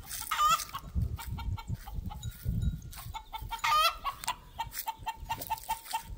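A hen's cackle, the kind given after laying an egg: runs of quick clucks broken by two loud drawn-out squawks, about half a second and nearly four seconds in, then a steady string of clucks about three a second.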